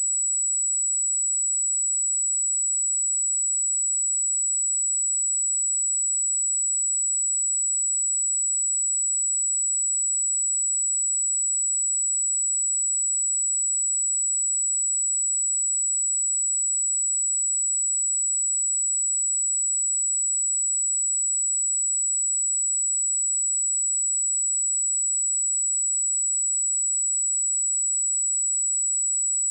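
A pure 7845 Hz sine-wave test tone, one steady high-pitched whistle-like tone held at constant level, used for checking speakers or headphones.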